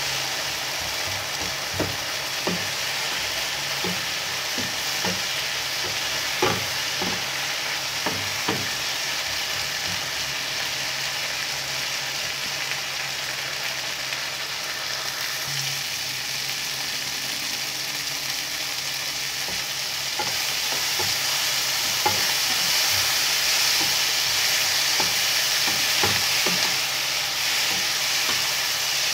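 Sliced eggplant, onion and red pepper sizzling in a frying pan, with a wooden spatula knocking and scraping against the pan as it is stirred. The sizzle gets louder about two-thirds of the way through.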